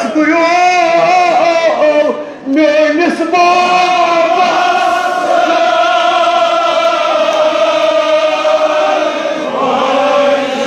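A group of men chanting a Kashmiri marsiya, a mourning elegy, together, drawing out long held notes, with a brief break about two seconds in.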